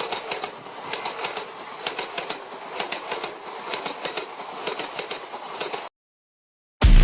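A train passing, its wheels clattering over the rail joints with many sharp clicks, cutting off abruptly about six seconds in. A loud, deep sound cuts in just before the end.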